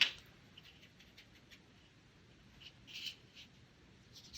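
Faint, soft scratching of a paintbrush on watercolour paper: a few brief strokes, the clearest about three seconds in.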